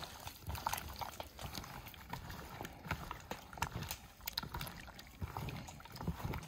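Raw chicken wings being mixed by gloved hands in a thick tomato-and-mayonnaise marinade: irregular wet squelches, slaps and squishes of meat and sauce.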